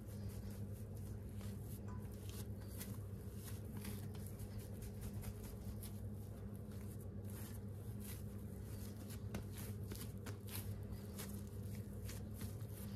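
Oiled hands stretching and folding a soft, sticky bread dough: faint irregular small clicks and wet smacks as the dough is lifted and pulled, over a steady low hum.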